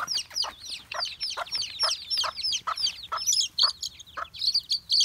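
Young chicks peeping rapidly: a dense string of short, high peeps, each falling in pitch.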